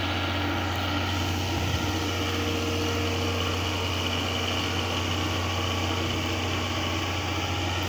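Steady low hum of an idling engine, with no change in pitch or level.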